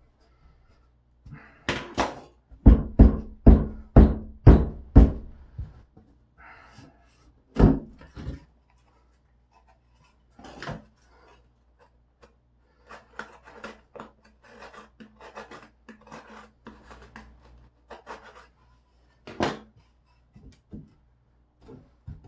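Drywall being cut out by hand for a patch repair: a quick run of sharp knocks about two a second, a few single knocks, then a stretch of light scraping and rubbing against the board.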